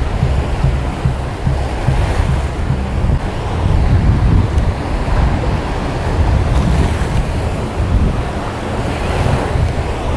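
Ocean surf washing onto a sandy beach, with strong wind buffeting the microphone as a loud, uneven low rumble.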